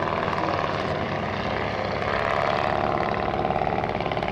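Propeller engines of WWI replica fighter planes droning steadily as they fly past, the pitch sagging slightly in the second half.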